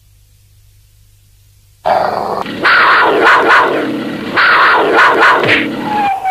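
Cartoon animal growling and snarling sound effects. They begin suddenly about two seconds in, after a quiet stretch, and come in loud, rough surges.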